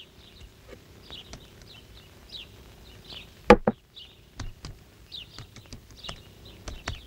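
Laptop keys clicking under typing, with small birds chirping over and over in the background. Two louder sharp knocks in quick succession about three and a half seconds in.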